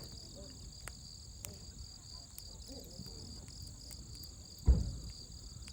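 Campfire burning with scattered small crackles and pops, over steady chirping insects. A single louder dull thump comes about three-quarters of the way through.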